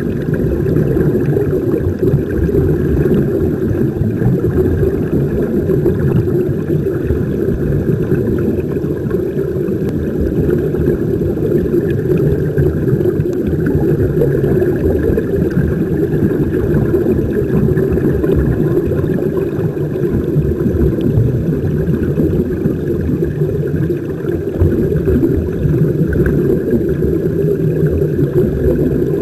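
Steady, muffled underwater noise picked up by a submerged camera: a dense low rumble and rush, without letup, from water moving over the housing and air bubbling from the sea-walkers' air-fed helmets.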